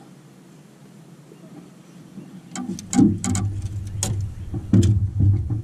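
Thumps and sharp knocks on an aluminium jon boat as a person moves about the deck and handles gear, over a low rumble carried through the hull. They begin about two and a half seconds in, with the loudest knocks near the middle and toward the end.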